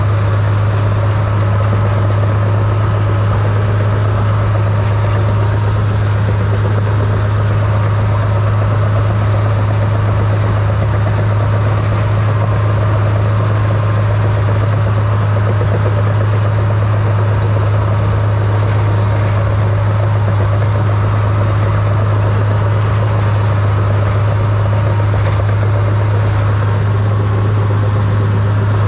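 Small crawler dozer's diesel engine running at a steady speed as it pushes snow with its blade, heard from the operator's seat: a constant low drone that does not rise or fall.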